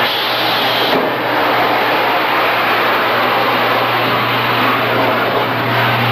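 Dark ride car running along its track: a steady, loud mechanical noise with a low hum that grows stronger toward the end.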